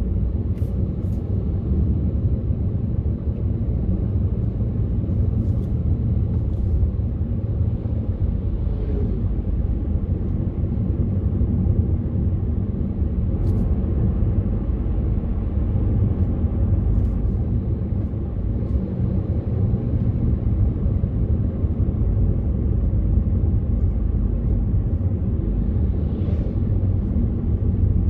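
Steady low rumble of a car driving on a paved road, heard from inside the cabin: tyre, road and engine noise with no change in pace, and a few faint clicks.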